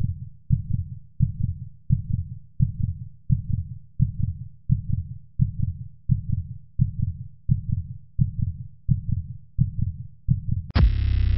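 Heartbeat sound effect: deep, evenly paced lub-dub thumps, about one and a half beats a second. Near the end, a song with singing cuts in suddenly and is louder than the beats.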